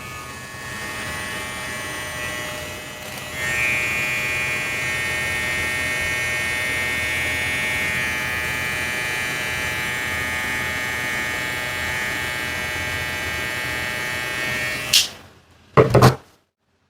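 Wmark NG-1060 cordless hair clipper running at its single speed, a steady high motor hum. About three and a half seconds in it gets louder and brighter. It is switched off with a click about fifteen seconds in, followed by a couple of short handling knocks.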